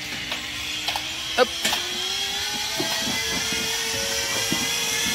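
Indoor bicycle trainer whining as a rider spins it up. The pitch rises over about three seconds, then holds as a steady high whine. A few sharp clicks come in the first two seconds, the loudest about a second and a half in.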